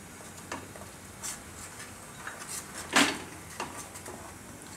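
A spatula clinking and scraping against a kadai while a yogurt curry is stirred: a few separate clicks, the loudest about three seconds in.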